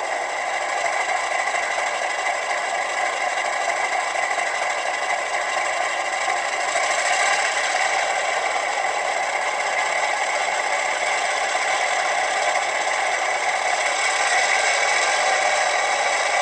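Diesel prime-mover sound from the LokSound 5 decoder in an HO-scale brass E9 model locomotive, played through the model's small speaker, thin with little bass. It runs steadily and revs up about halfway through, and again near the end, as the model starts smoothly and moves off.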